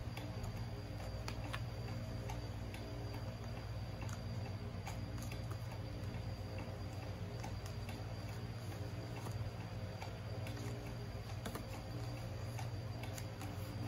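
A sheet of origami paper handled and creased by hand: faint scattered clicks and ticks at uneven intervals, over a steady low electrical hum.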